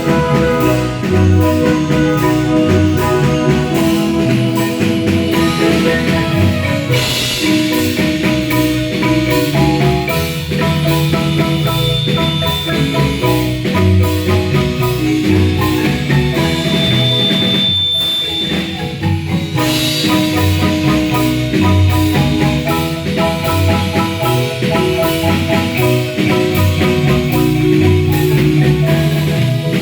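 Marimba band playing: many quick mallet notes on the wooden bars over a pulsing low bass line.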